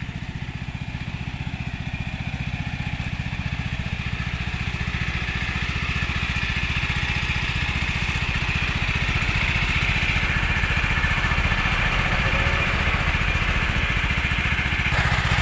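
Engine of a sand-suction pump running steadily, its level slowly rising.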